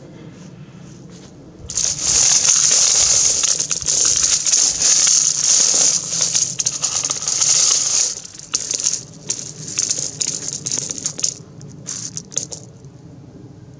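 Pile of Russian rouble coins in a galvanized steel bucket, jingling and clinking as a gloved hand digs in and scoops up a handful. A dense run of clinking starts about two seconds in and lasts until about eight seconds in, followed by scattered single clinks that stop about twelve seconds in.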